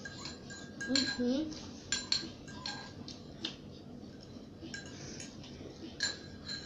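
A spoon clinking and scraping against a bowl as noodles are eaten, with a handful of sharp clinks spread through. About a second in there is a short vocal sound from a child.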